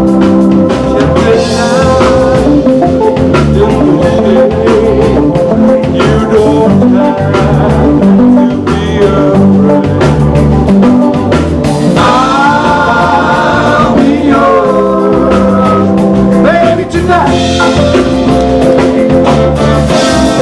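Live band playing a song with drum kit, bass and guitar, at a steady beat.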